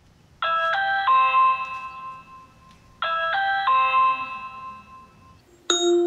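Ring video doorbell chime set off by a press of the doorbell button: a short three-note tune rings out twice in a row, each time fading away. Near the end a different, brighter chime begins.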